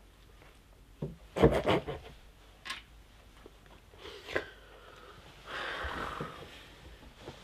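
Rubbing and rustling of a plush toy being hugged and squeezed, with a few short knocks and clicks, then a longer soft hiss about five and a half seconds in.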